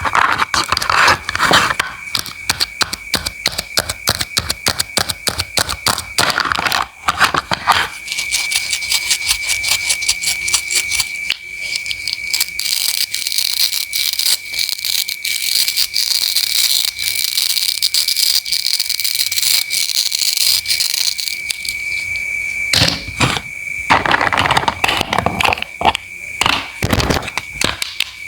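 Knife cutting produce on a cutting board: rapid clicking strokes, then a steady hiss for about ten seconds from around twelve seconds in, then more strokes near the end. A thin, steady high tone runs underneath throughout.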